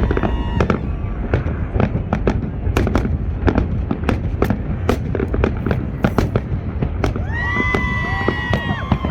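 Fireworks display going off: a dense, irregular run of sharp bangs and crackles. About seven seconds in, several high whistles join in together and hold for over a second.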